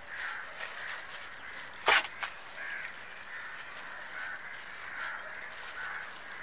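Crows cawing over and over, with a sharp knock about two seconds in and a smaller one just after.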